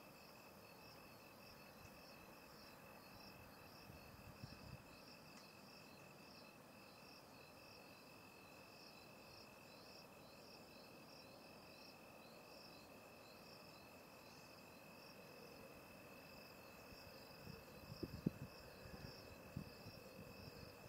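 Faint night insects, crickets: one steady high trill and another chirping in regular pulses about twice a second. A few soft knocks near the end.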